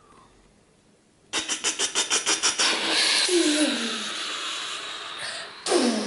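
A person making toy-plane attack sound effects with their mouth: about a second in, a rapid burst of machine-gun fire, about ten pops a second, then a loud rushing jet noise with a falling whine, and another falling whoosh near the end.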